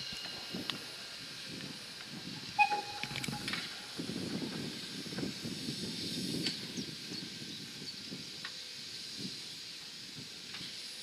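Class 52 'Kriegslok' steam locomotive TЭ-5933 moving slowly, with a steady hiss of steam over a low rumble and scattered clicks. A sharp knock with a brief squeal comes about two and a half seconds in.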